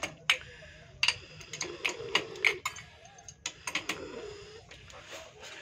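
Adjustable wrench clicking against a chrome wall mixer's metal fittings as its nuts are tightened: a run of sharp, irregular metal clicks.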